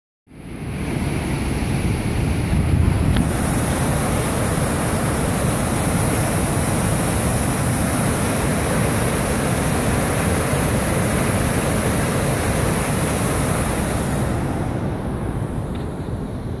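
Water gushing and churning as it is released through a dam's outlet gates: a loud, steady rushing. It eases a little near the end.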